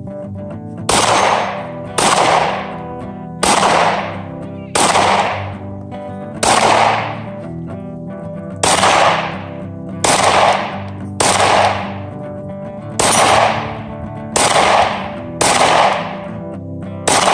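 A Glock 17 9mm pistol built on a P80 frame fired about a dozen times at a slow, steady pace, one shot every one to two seconds. Each shot is a sharp crack that rings away over about a second.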